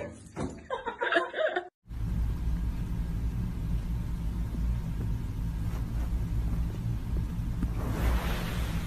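A person's laughing voice that cuts off just under two seconds in, then a steady low rumble with no clear source, with a soft hiss near the end.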